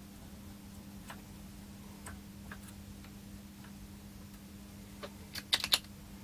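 Small, sharp clicks and taps of tools against a circuit board during desoldering: a few faint scattered ticks, then a quick cluster of four or five louder clicks about five seconds in, over a faint steady hum.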